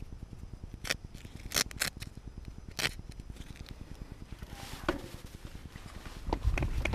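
Short scratchy rasps of glove straps being adjusted, a few in the first three seconds and one more a little later. Near the end a louder low rumble with knocks comes in as the mountain bike starts rolling on the dirt trail.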